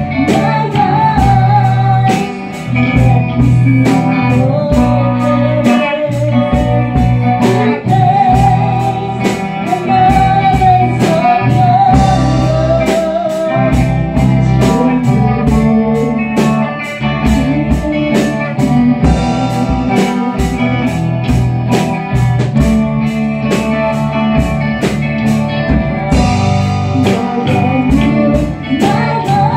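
Live praise band playing a worship song. A woman sings the melody over electric guitar and keyboard, with a steady drum beat.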